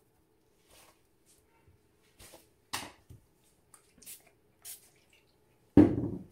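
A series of light clicks and taps from painting tools being handled, with one much louder knock near the end.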